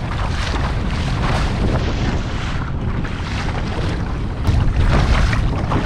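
Strong wind buffeting the microphone, with choppy waves splashing against a kayak hull. It is a loud, rumbling rush that grows stronger near the end.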